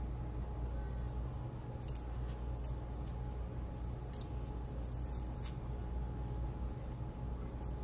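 Garlic cloves being peeled, their papery skins giving a handful of short, crisp scratches and crackles spaced irregularly over a steady low hum.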